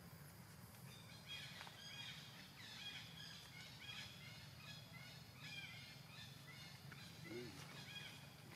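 Faint, short high chirping calls with a rise and fall, several a second, from about a second in until near the end, over a steady low hum; one lower call comes near the end.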